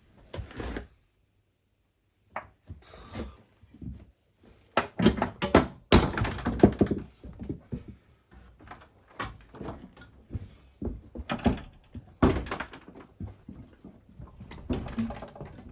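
Irregular knocking and clattering of tools and metal parts being handled, with a brief dead silence near the start and louder clanks about six and twelve seconds in.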